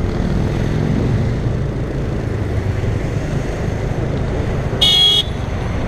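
Steady road and engine rumble of a car in traffic, with a short, loud car-horn toot of about half a second near the end.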